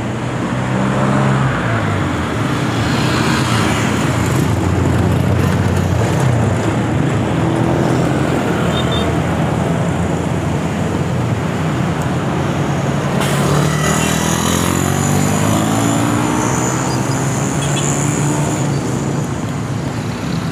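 Road traffic noise: motor vehicles running close by, with engine pitch rising and falling as vehicles pass, most clearly in the second half.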